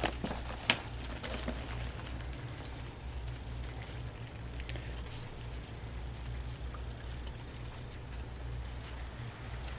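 Steady patter of light rain falling, with a couple of sharp ticks about a second in.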